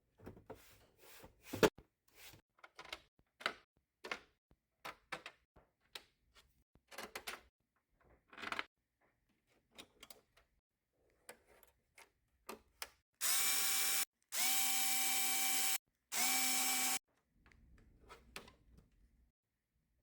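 Scattered clicks and taps of PS3 console parts and screws being handled during reassembly, then three short runs of an electric screwdriver's motor, each about a second long, close together about two-thirds of the way in.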